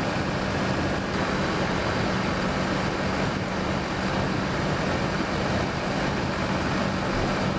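Kawasaki Versys motorcycle cruising at steady speed: a constant rush of wind and road noise with the engine's steady drone underneath.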